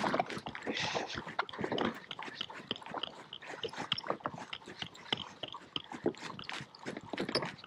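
Pet raccoon chewing close to the microphone: a dense, irregular run of small crunching clicks.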